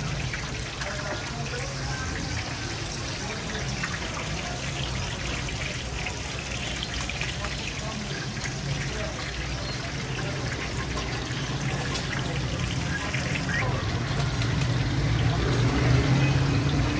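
Chapli kababs frying in a wide pan of hot fat: a steady, dense sizzle. A low hum underneath grows louder toward the end.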